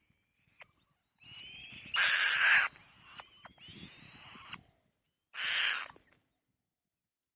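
Nestling birds calling from the nest: three harsh, hissing screeches, the first two with a thin rising whistle over them, the loudest about two seconds in.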